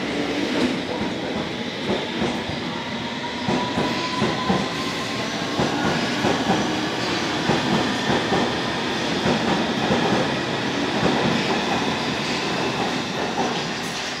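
London Underground S Stock train running along the platform, its wheels clattering over the rails with repeated clicks over a steady rumble. A faint whine rises slowly in pitch in the first half.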